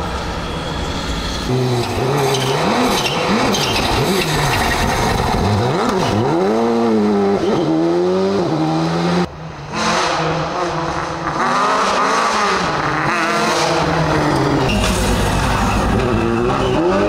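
Rally cars racing past at full speed, the engines rising and falling in pitch through gear changes and over crests, with swooping changes in pitch as they go by.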